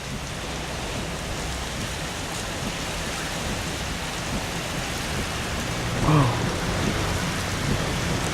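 Heavy rain falling steadily: a dense, even hiss of rain hitting surfaces.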